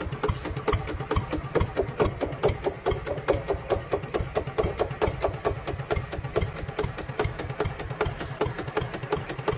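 Model two-wheel walking tractor running with an engine-like putt-putt, a steady rhythm of about six knocks a second over a low rumble.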